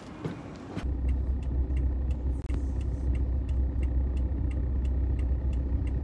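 Steady low rumble of a car heard from inside the cabin, starting about a second in.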